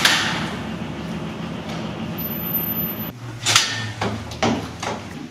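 A door clunks open, then footsteps on a stairwell: several separate steps about half a second apart in the second half, over a low hum.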